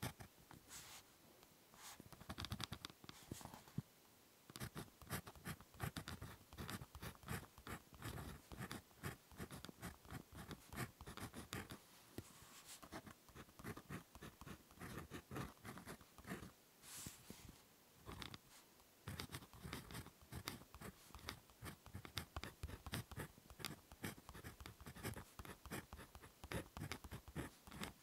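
Ballpoint pen writing on paper: quick scratchy strokes in runs, with short pauses now and then.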